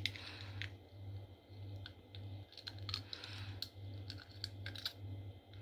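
Faint, irregular small clicks and crackles of a cracked eggshell being handled and pried open by fingers as the egg white is let drip into a glass bowl, over a low pulsing hum.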